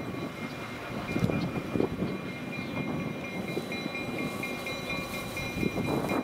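EMD GP16 diesel locomotive rolling slowly, its engine running steadily, with scattered clicks of wheels on the rails.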